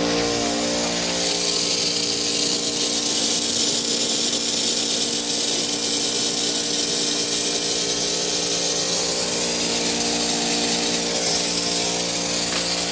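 Small 6.2 CFM air compressor running steadily while compressed air blows the water out of the irrigation line, hissing and spraying from a popped-up sprinkler head.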